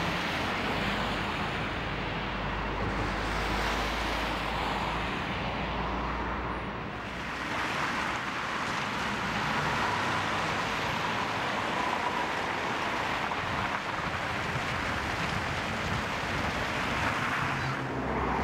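City traffic: cars driving past on a wet, slushy street, a steady hiss of tyres and engines, with a low rumble under it for roughly the first third.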